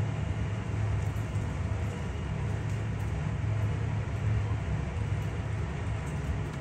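Steady low rumbling background noise that holds an even level, with no distinct events.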